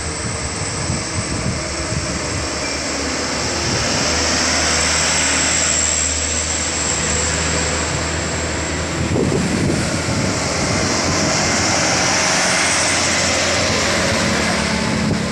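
Heavily loaded light diesel trucks passing close by: a low, steady engine note with tyre and road noise that swells as one truck goes past, followed by a second truck coming close during the second half.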